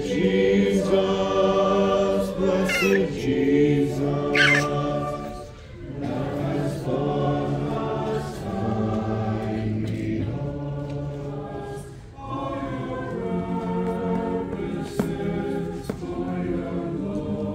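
Church congregation singing a hymn in parts, unaccompanied, in held phrases that pause twice for breath. Two short high squeaks come a few seconds in, the second the loudest moment.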